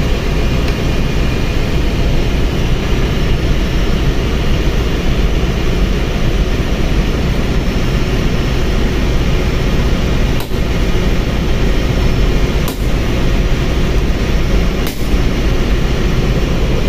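Loud, steady machinery drone with a heavy low rumble, like engine-room background noise. Three sharp knocks come about two seconds apart in the second half.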